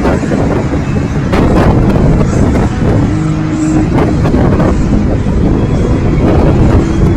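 Loud, steady road-traffic noise of vehicles driving, with a short steady tone about three seconds in and another near the end.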